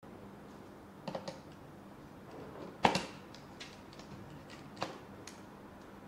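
Handling noise from a small plastic doorbell chime unit being handled and pushed into a power-strip socket: a few scattered sharp clicks and knocks, the loudest about three seconds in, over a faint steady hum.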